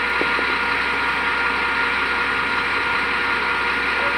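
Wheel loader's diesel engine idling steadily, with a steady high whine over it.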